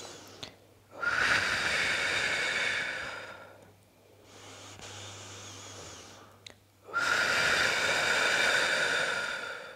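A woman exhales twice through her mouth, blowing long, hard breaths onto her cupped palms. Each blow lasts about two and a half seconds, starts abruptly and fades out. Between them she takes a quieter breath in through her nose.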